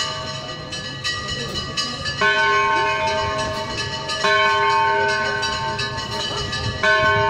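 A church bell tolling slowly: three strikes about two seconds apart, each ringing out and fading before the next.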